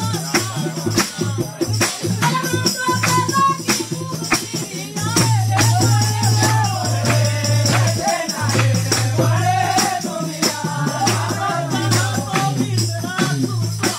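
Pahari jhuri folk song: a voice singing over a steady beat of hand percussion and a low held note, the singing stronger from about five seconds in.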